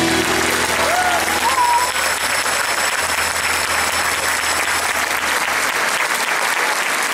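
Theatre audience applauding as a song ends, with a couple of short whistles about a second in. The band's last low note rings under the clapping and fades out about six seconds in.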